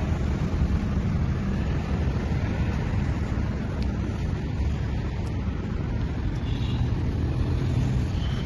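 Steady low outdoor rumble with no single clear event, and a few faint high chirps about two-thirds of the way through.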